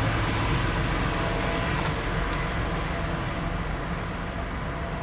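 Loaded CSX coal train passing, a steady rumble that slowly fades as it draws away, heard from inside a car.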